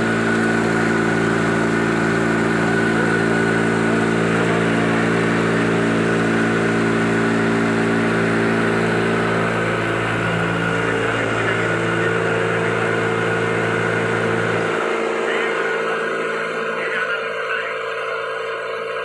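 Sawdust grinder plant running: its belt-driven electric motor and grinder give a steady machine hum with several held tones. About fifteen seconds in, the deepest part of the hum cuts off and the rest carries on a little quieter.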